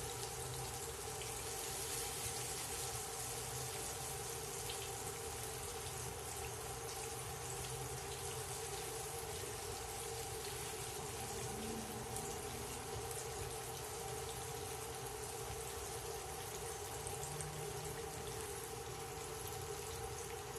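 Breaded fish fillets frying in hot peanut oil in a cast-iron pan: a steady, even sizzle, with a steady hum underneath.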